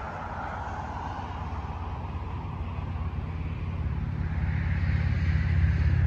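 Road traffic: a motor vehicle's engine approaching, its low rumble growing steadily louder.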